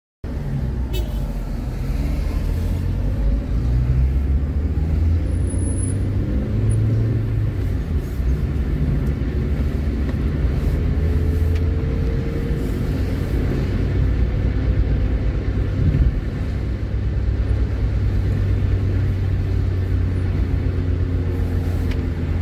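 Car driving along a road, heard from inside the moving car: a steady low rumble of engine and tyres, with a faint whine that rises slightly about halfway through.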